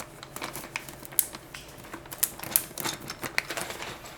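Light, irregular clicks and taps of small plastic keycaps being handled and set down.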